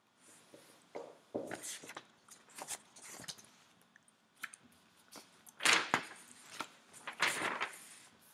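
Paper sheets being handled and shifted, with irregular rustling and crinkling and soft scrapes; the loudest rustles come about six and seven seconds in.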